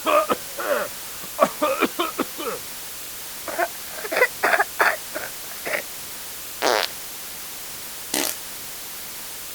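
A run of short human bodily-noise sound effects, mostly brief fart-like blurts, some with a pitched buzz. About eighteen come in quick clusters over the first six seconds, then a longer buzzing one and a single sharp one near the end.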